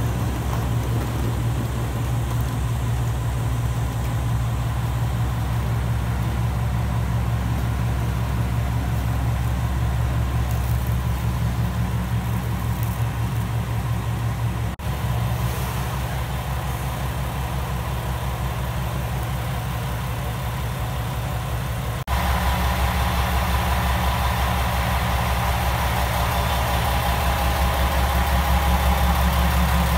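KiHa 120 diesel railcar's engine idling steadily: a low, even throb. It dips briefly about fifteen seconds in and turns louder and fuller about 22 seconds in.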